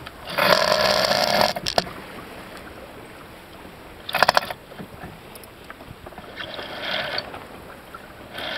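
Sailboat deck winch ratcheting in short bursts, about four times, the longest for about a second and a half near the start, as a sheet is trimmed.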